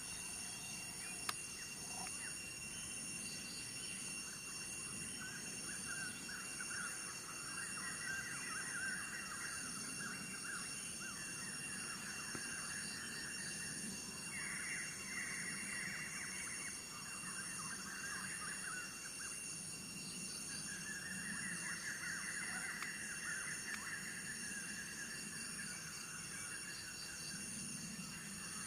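Insects calling: a steady high drone with a fast pulsing beat, joined by lower rasping choruses that swell and fade in stretches of a few seconds. A single sharp click sounds just over a second in.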